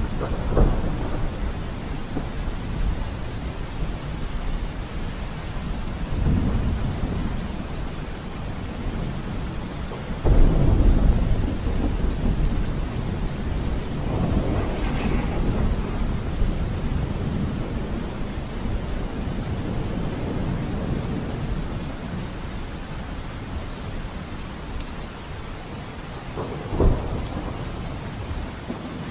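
Steady rain with several low rolls of thunder; the loudest roll swells up about ten seconds in.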